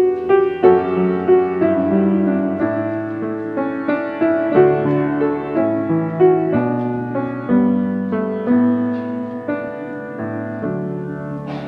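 Grand piano playing a slow passage of single notes and chords, a new note or chord coming every half second or so and each left to ring.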